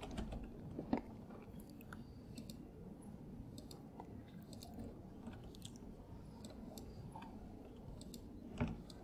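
Faint room tone with scattered soft clicks from a computer mouse and keyboard, with a sharper click about a second in and another near the end.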